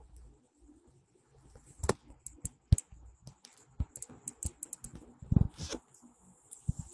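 Irregular sharp clicks and knocks, starting about two seconds in, with one duller, heavier knock near the end: handling noise from a phone held close at its microphone.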